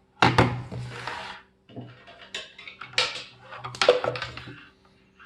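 Clicks and clatter of a charger and USB cable being handled and plugged in: a few sharp knocks, a short rustle about a second in, and more clicks later.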